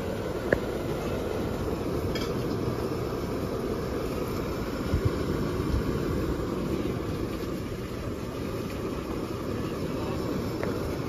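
Portable gas stove burner running under a clay pot, a steady low rushing noise, with a few light clicks.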